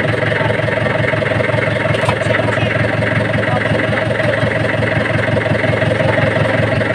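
Fishing boat's engine running steadily, a constant drone with no change in speed.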